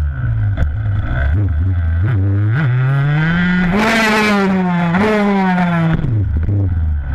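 Freestyle motocross dirt bike engine, heard from a camera on the bike: idling unevenly, then revving up about two seconds in and holding high revs, with a burst of rushing noise around four seconds in, a second blip about five seconds in, and a drop back to a low idle near the end.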